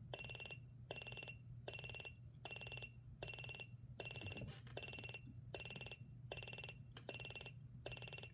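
Sony digital alarm clock's buzzer alarm beeping at a steady pace, about two short high beeps a second, still fairly quiet: the soft first stage of an alarm that grows louder the longer it sounds.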